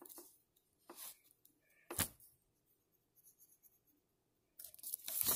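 Pencil on paper: a few brief scratchy strokes, a sharper tap about two seconds in, and a louder rustle building near the end.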